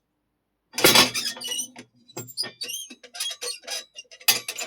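Foley metal gate sound: a sudden loud metallic clank, then a run of irregular rattling strikes with ringing and short squeaks, the sound of a metal gate being swung and banged.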